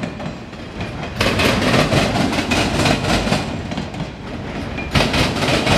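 Enclosed autorack freight cars rolling past, their steel wheels clacking rhythmically over rail joints, with brief lulls in the clatter at the start and about four seconds in.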